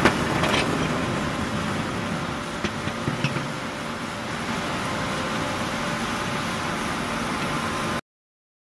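Pressed wood pallet machine running with a steady mechanical hum and noise while the moulded pallet is pushed up out of the mould, with a few sharp clicks and knocks in the first few seconds. The sound cuts off abruptly about eight seconds in.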